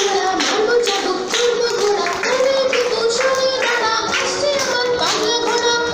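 A children's rhyme sung to music, with a high sung melody over a steady beat of sharp strokes about two a second.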